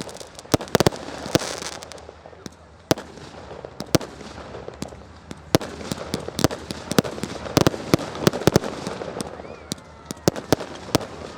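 Firework display: a continuous run of sharp bangs and cracks at irregular intervals, with louder clusters about a second in and again in the last third.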